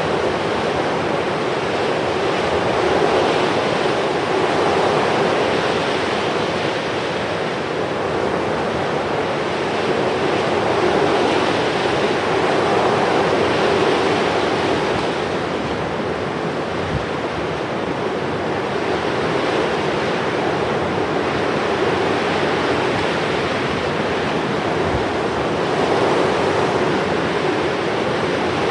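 Steady rushing noise that swells and eases every few seconds, with no engine note or impacts standing out.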